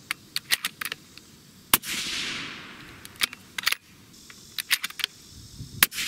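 Two suppressed rifle shots from a Sig Cross bolt-action in 6.5 Creedmoor, about four seconds apart, each trailing off in a fading hiss. Short sharp clicks of the bolt being worked fall between them.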